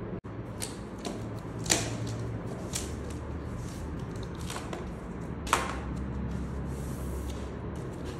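Scattered sharp clicks and taps at irregular intervals, two of them much louder than the rest, over a steady low hum.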